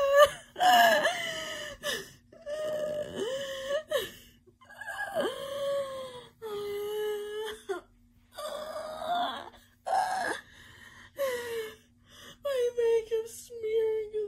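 A woman wailing and sobbing: a string of long, wavering cries with short gaps between them.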